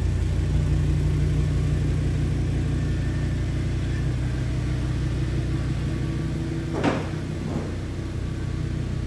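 Audi S6's 5.2-litre V10 engine running steadily at idle, a low even hum, with a single sharp knock about seven seconds in.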